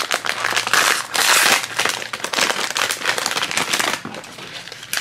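Blind-bag toy wrapper being torn open and rummaged by hand, with a dense run of sharp crinkles and crackles that eases off about a second before the end.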